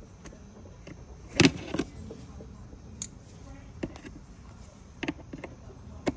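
Hand work on motorcycle parts: a loud clatter of hard parts about one and a half seconds in, then scattered single clicks and knocks, typical of pulling off an air filter housing and its fittings.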